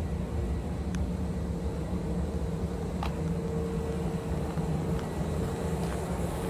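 Kintetsu 1026-series electric train's steady equipment hum: a low drone with a steady mid-pitched tone over it, and a couple of faint clicks about one and three seconds in.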